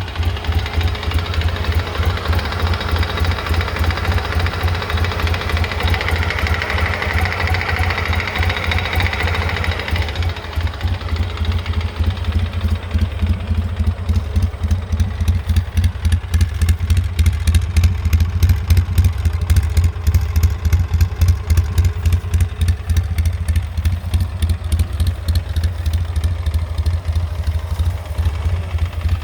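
2003 Polaris Sportsman 600 Twin ATV engine idling with a loud, rapid, regular knocking; the owner is unsure whether the knock is normal.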